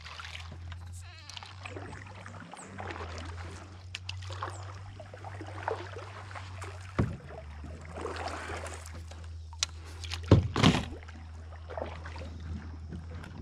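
Double-bladed kayak paddle strokes: blades dipping and splashing in the water, with irregular knocks of the paddle against the plastic hull of a sit-on-top kayak, the sharpest about seven and ten seconds in, over a steady low hum.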